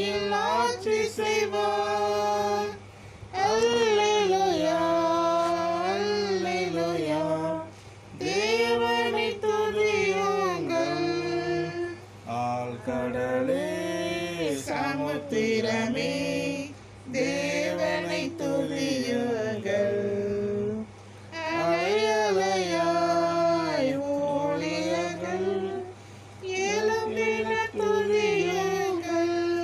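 A family group singing a Tamil Christian praise song together, mixed adult and children's voices, in long sung phrases with short breaks between them.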